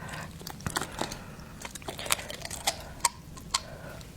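Close-miked eating: chewing with a dozen or so small, sharp, irregular mouth clicks.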